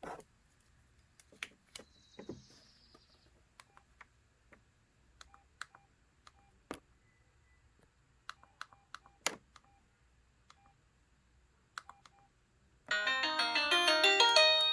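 A Samsung SGH-X497 mobile phone: a series of sharp key clicks, some with faint short beeps. About 13 seconds in, one of its original polyphonic ringtones starts, a quick melody of many short notes.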